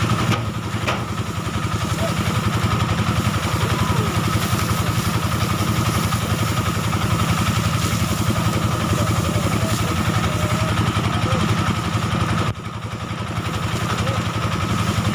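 Engine-driven rice thresher running steadily: a continuous small-engine note with fast even firing pulses and a steady high whine above it. The sound dips briefly about twelve seconds in.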